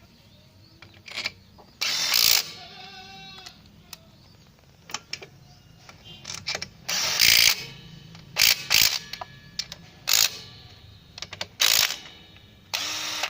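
Makita TD110D 12 V cordless impact driver hammering in about six short bursts, tightening 8 mm bolts back in, with small clicks between the bursts.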